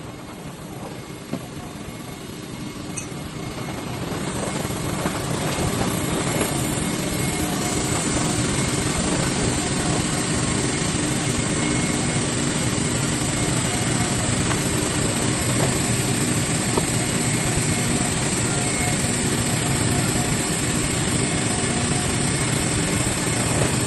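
A steady mechanical running noise, like a vehicle under way. It builds up over the first several seconds and then holds level, with a low steady hum underneath.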